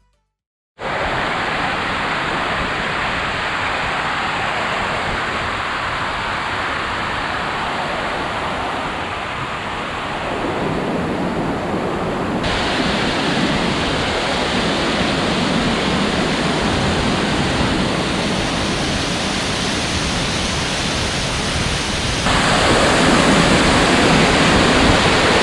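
A waterfall's water rushing: a dense, steady noise that starts abruptly just under a second in and shifts suddenly in tone and level about 10, 12 and 22 seconds in.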